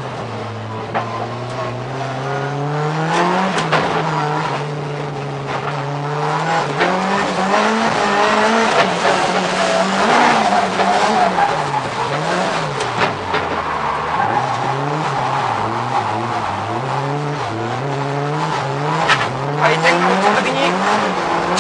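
Car engine heard from inside the cabin on a drift run, its pitch climbing and dropping again and again as the throttle is worked, with a quick series of up-and-down revs about halfway through. Tyres squeal through the slides.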